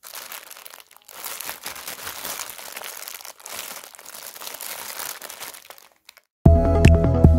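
Clear plastic polybags of building bricks crinkling as they are handled and turned over. Loud music with a steady beat comes in near the end.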